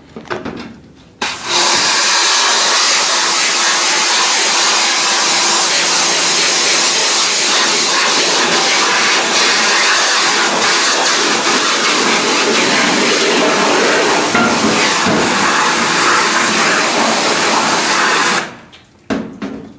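Steady, loud hiss of a water spray rinsing ink detergent and the ghost image off a screen-printing screen. It starts about a second in and stops suddenly shortly before the end.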